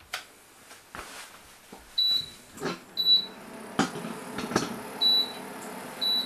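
Short high electronic beeps from the EveryCook cooking machine, starting about two seconds in and repeating about once a second with one gap, four in all. Several knocks and clicks as the machine's lid is handled.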